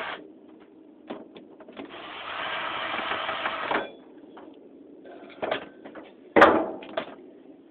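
Power drill running for about two seconds, backing out a stubborn screw from a ceiling fan's cast aluminum blade iron. A few knocks and clicks follow, the loudest a sharp knock near the end.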